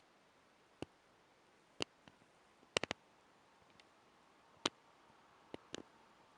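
A few light, sharp clicks and taps at irregular intervals, with a quick run of three clicks about three seconds in, over a faint quiet background.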